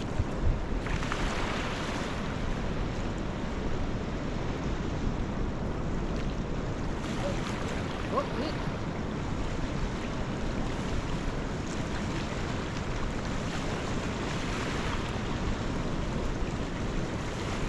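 Steady wind blowing over the microphone, with the wash of small waves at the shore swelling a few times.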